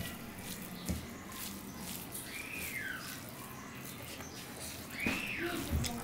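Eating sounds of a man mixing rice and dal with his fingers on a steel plate and chewing, with small wet mouth clicks. Twice, about two seconds in and again near the end, a bird gives a short chirp that rises and then falls.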